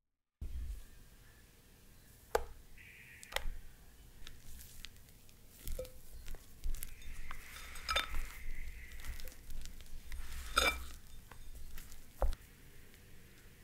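A silicone spatula folding meringue into cake batter in a glass bowl: soft squishing and scraping against the glass, broken by a few sharp clinks.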